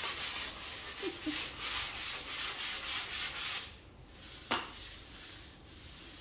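Sanding block rubbed by hand over a dried plaster drywall patch, light back-and-forth strokes at about three a second, blending the patch flat. The sanding stops about three and a half seconds in, and a single sharp click follows about a second later.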